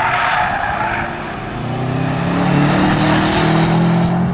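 Subaru's flat-four engine driven hard through a bend, with tyre scrub in the first second as the car slides, then a steady engine note that grows louder about one and a half seconds in as the car accelerates out of the corner.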